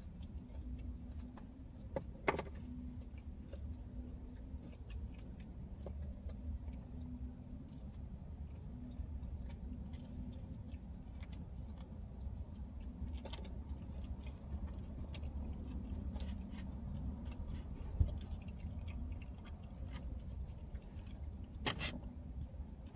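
A person chewing crispy thin-crust pizza close to the microphone, with small crunches and mouth clicks throughout and a few sharper crunches or clicks. A steady low hum lies underneath.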